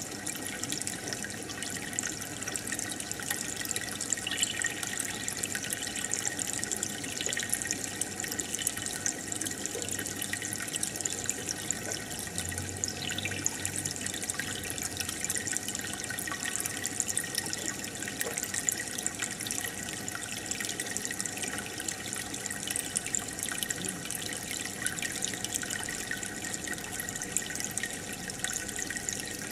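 Aquarium water bubbling and trickling steadily from the tank's air bubbles and filter, a constant fizzing splash with fine crackles.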